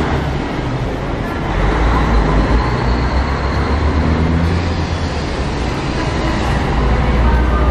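Diesel engine of a Scania-chassis Marcopolo Paradiso 1200 G7 coach running at low speed as it manoeuvres, a steady low rumble that swells about two seconds in and again near the end.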